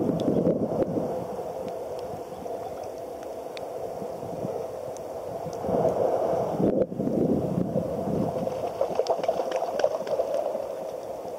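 Seawater lapping and sloshing against a camera held at the water's surface, with small splashes and scattered droplet ticks. There is a brief break in the sound about seven seconds in.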